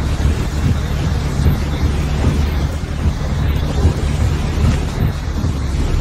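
Wind buffeting a phone microphone: a steady, loud low rumble with a noisy rush over it.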